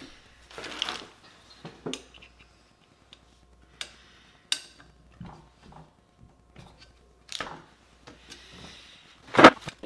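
Hands handling the metal and plastic parts of an Ender 3 Pro 3D printer kit on a workbench: a scattering of light clicks and knocks at uneven intervals, the loudest near the end.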